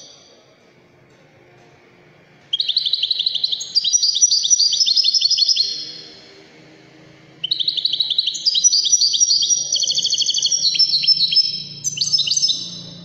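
European goldfinch singing: two long phrases of rapid, high twittering notes. The first starts about two and a half seconds in, and the second follows a short pause about seven seconds in.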